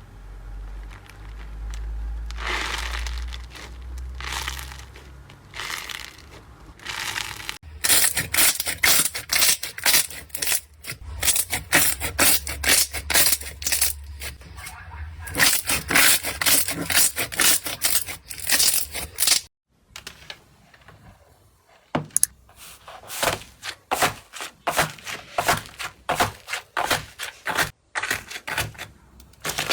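Slime being squeezed, pressed and poked by hand. Softer squishing strokes about once a second give way to dense, rapid crackling and popping, then to sharper, separate pops after a brief pause.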